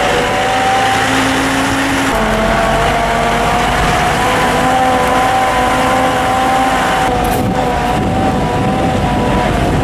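Vehicle engine running at a steady pace with a constant hum. Its pitch drops slightly about two seconds in.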